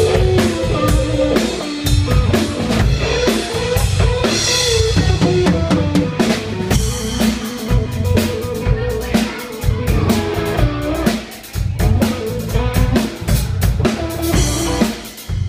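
Live rock band playing: drum kit with bass drum and snare keeping a steady beat under electric bass and electric guitar.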